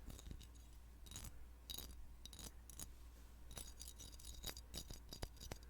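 Fingers tapping and clicking on a small hard Star Wars credit prop close to the microphone, with irregular light clicks and clinks in small clusters.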